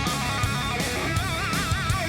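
Background rock music: electric guitar playing a melody with wide vibrato over drums and bass.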